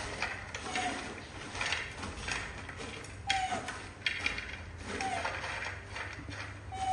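Rustling of a plastic snack bag and crisp clicks and clatter as handfuls of puffs and crackers are dropped onto a plate, about once or twice a second. A few brief, falling squeaks are heard among them.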